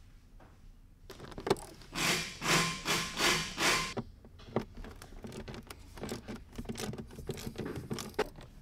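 A hand tool working the screws and plastic dash trim around the instrument cluster of an E70 BMW X5: four loud rasping strokes about two to four seconds in, then many small clicks and taps of tool and plastic.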